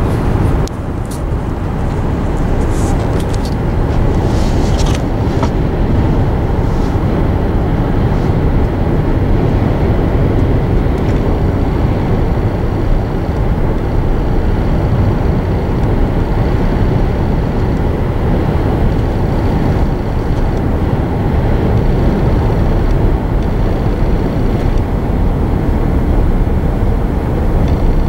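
Steady road and engine noise heard inside a car cabin while driving on an open highway, with a few faint high clicks in the first few seconds.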